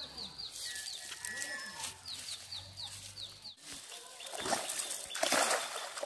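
A bird chirps over and over, short falling notes about three a second, until a sudden cut about three and a half seconds in. Then a cast net splashes down across the pond surface in loud rushes of noise near the end.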